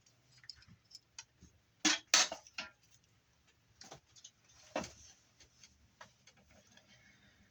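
Scattered light clicks and clatter from handling stiff insulated copper wire and stripped pieces, with a few sharper knocks about two seconds in and again near five seconds.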